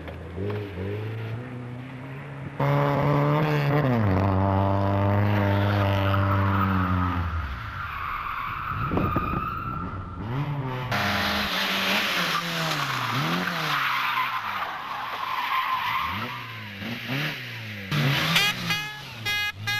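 Rally car engines revving hard and dropping in pitch as the throttle lifts between gear changes, with stretches of loud tyre skid noise. The sound changes abruptly about 11 s in as one shot cuts to another, and there are quick rising revs near the end.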